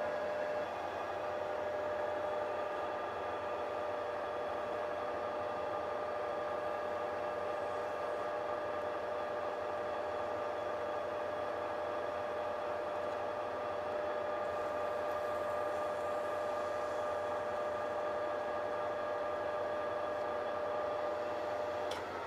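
Metal lathe running steadily with a constant whine from its motor and gearing as it spins the chuck holding a steel motor axle. Near the end there is a click and the whine falls in pitch as the lathe is switched off and winds down.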